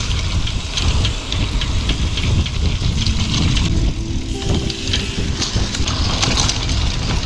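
Wind buffeting the microphone with the clatter and rattle of a mountain bike riding over a rough, rooty forest trail. A few brief faint tones sound about halfway through.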